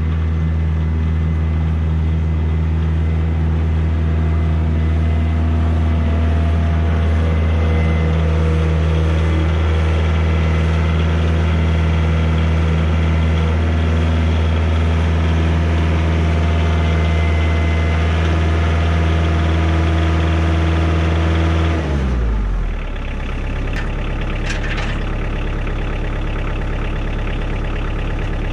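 Compact loader tractor's diesel engine running steadily at raised revs, then dropping in pitch to a lower idle about three-quarters of the way through.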